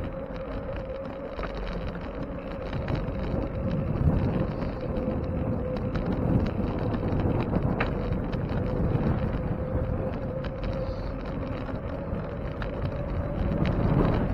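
Wind buffeting the microphone of a camera on a moving bicycle, in uneven low swells, with a faint steady hum underneath.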